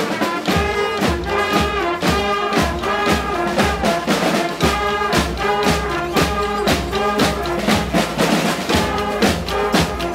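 Live brass band playing dance music: trumpets and trombones in short, repeated stacked notes over drums keeping a steady beat.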